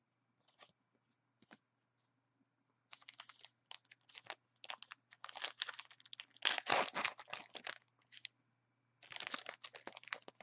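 A trading-card pack wrapper being torn open and crinkled by hand: irregular crinkling from about three seconds in, loudest around the middle, and another burst near the end as the cards are pulled out of the wrapper.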